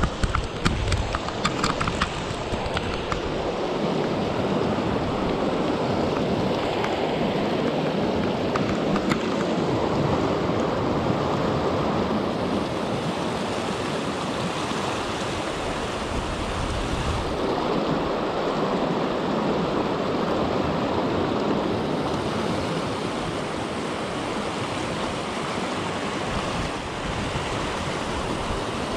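Shallow mountain trout creek rushing over rocks and riffles: a steady, even rush of water.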